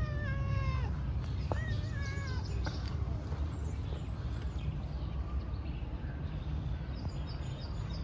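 Cat meowing twice in the first two and a half seconds, the first call sliding down in pitch, the second jumping up and then wavering, over a steady low background rumble; faint high bird chirps come in later.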